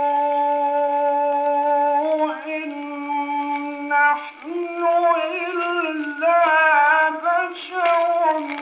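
Solo male voice chanting Quran recitation in the melodic mujawwad style: a long held note for about four seconds, then a step up in pitch into wavering, ornamented melisma, settling back onto a lower held note near the end.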